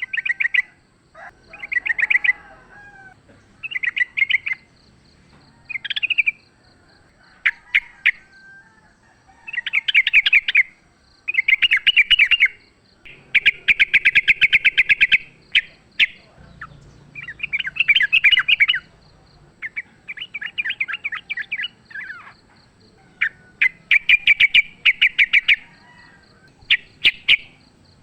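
Yellow-vented bulbul (trucukan) singing its fast chattering fighting song: short bursts of rapid, evenly repeated notes, one burst every second or two, some running longer than others. A faint high pulsing tone sounds behind at times.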